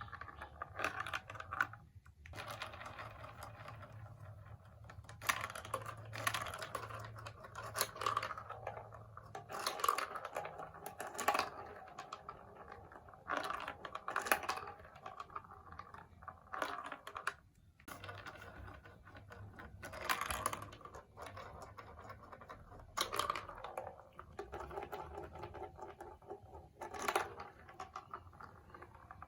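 Small hard plastic pieces of a marble-run building-block set clicking and clattering in irregular bursts, with brief lulls between them.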